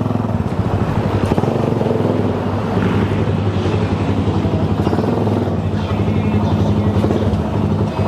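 Suzuki Raider 150 carb's single-cylinder four-stroke engine running steadily at low revs through an open aftermarket HGM exhaust pipe, a loud, evenly pulsing exhaust note.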